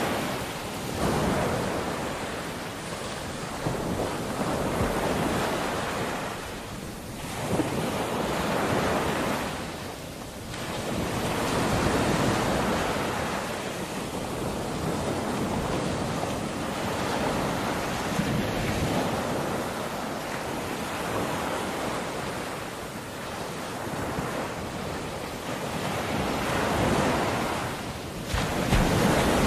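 Waves washing in: a rushing noise that swells and fades every few seconds.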